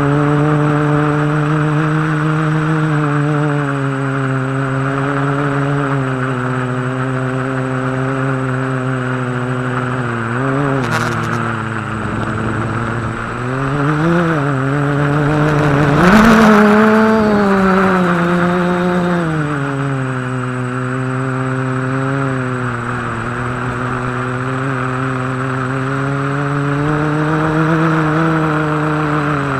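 Quadcopter's electric motors and propellers, recorded onboard, giving a steady buzzing whine whose pitch wavers and dips with throttle changes. About halfway through the pitch jumps up and the sound is at its loudest, with a rushing noise, before settling back to a steady hum.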